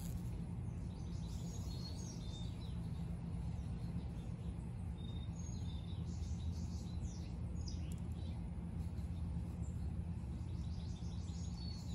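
Several birds chirping in short, scattered calls over a steady low rumble of outdoor background noise.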